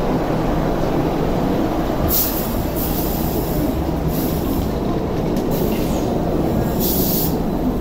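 MTR Light Rail Phase 1 light rail vehicle rolling past close by: a steady rumble of wheels and running gear on the track, with several short high-pitched wheel squeals about a second apart.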